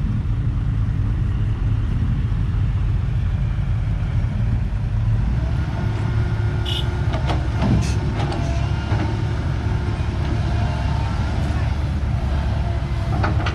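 Diesel engines of a Komatsu crawler excavator and a six-wheel dump truck running steadily under load, with a few metallic clanks and short squeals about halfway through as the excavator works.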